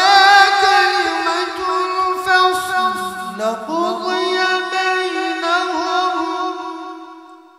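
A man's voice reciting the Qur'an in melodic, sung tajweed style, drawing out one long, high, ornamented phrase that wavers in pitch and fades away near the end.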